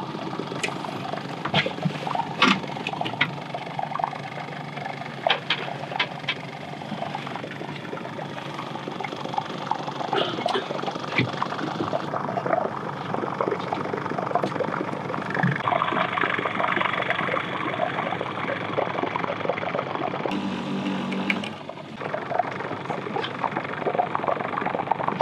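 Boat motor running steadily at trolling speed, with wind and water noise and scattered sharp clicks and knocks.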